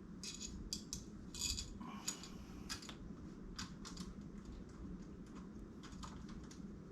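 Small metal parts clicking and clinking as they are handled: screws and deadbolt hardware being picked up and fitted, in irregular light taps, busiest in the first three seconds.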